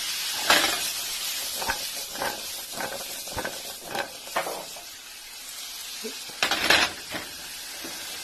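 Diced onions, carrots and celery sizzling in hot oil in a sauté pan, with a steady hiss, while a utensil knocks and scrapes against the pan as they are stirred; the loudest scrape comes about six and a half seconds in.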